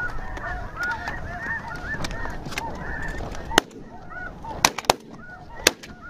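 A chorus of snow goose calls: many overlapping short, high yelps, thinning out in the second half, with a few sharp clicks near the end.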